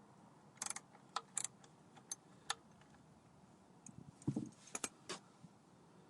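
Scattered sharp metallic clinks of a socket wrench and 14 mm socket working an oil pan drain plug loose, in two irregular clusters, with a duller knock about four seconds in.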